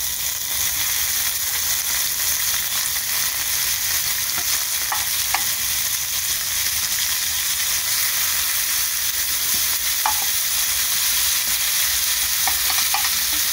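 Shrimp frying in olive oil and butter in a nonstick pan: a steady sizzle, with a few light clicks as more shrimp are laid in with metal tongs.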